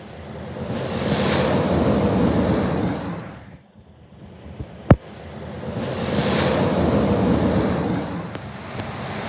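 Semi trucks passing close by on a highway, one after another: each pass is a rising and fading rush of tyre and engine noise lasting about three seconds, with a dip between them. A single sharp click about five seconds in.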